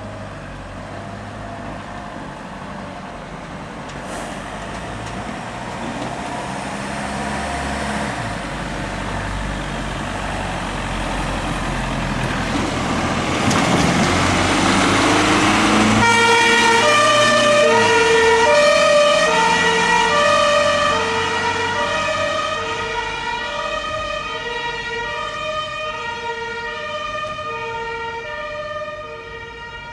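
Fire engines' diesel engines pulling away and passing, growing louder. About halfway through, a two-tone siren switches on, alternating back and forth between two notes, and eases off slightly as the vehicle drives away.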